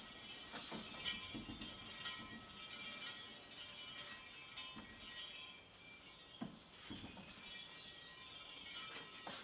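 Light metallic clinks and ticks as a steel rod is cranked slowly through the rollers of a hand-operated roll bender, occasional and faint over a low steady background.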